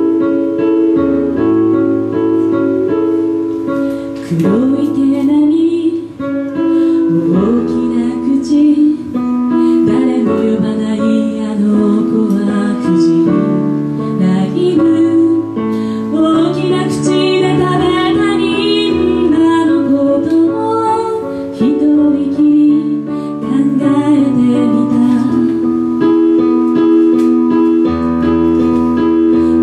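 A woman singing a slow song while she accompanies herself on an electric keyboard with a piano sound, playing held chords throughout. Her voice comes and goes over the chords, mostly in the middle stretch.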